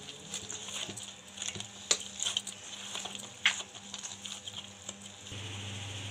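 Wheat-flour dough being kneaded by hand in a steel bowl as oil is worked in: faint squishing and patting with a few sharper clicks. Near the end it gives way to a quiet steady hum.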